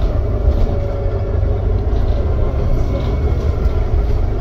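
Inside a Volvo B9TL double-decker bus under way: steady low rumble of the engine and road noise, with a faint whine that comes and goes.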